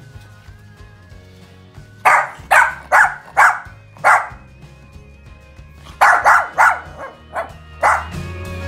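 A Shih Tzu barking in two runs of five or six barks each, over background music. They are impatient barks from the dog waiting to be fed.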